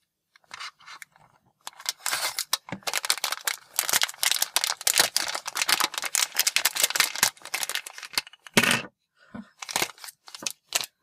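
Crinkling and rustling of a foil-plastic blind bag being handled and cut open, a dense crackle for most of the time. Near the end come a few separate knocks, the loudest with a low thud, as the small toy plane drops out onto the wooden shelf.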